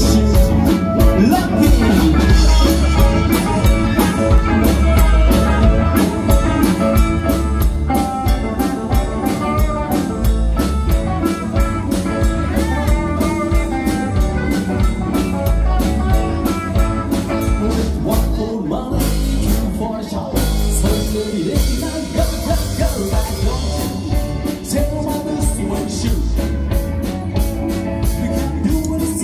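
Live band playing rock and roll: electric guitars, electric bass, drum kit and keyboard, with some singing.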